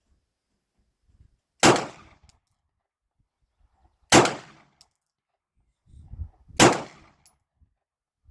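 Three pistol shots, slow and evenly spaced about two and a half seconds apart, each a sharp crack with a short ringing tail.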